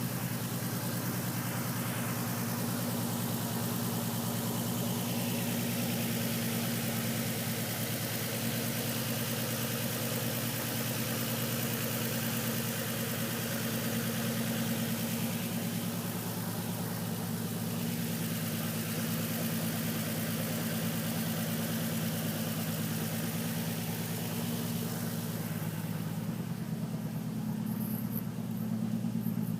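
Nissan 350Z's 3.5-litre V6 idling steadily, which the owner takes to have a misfire and a slight knock.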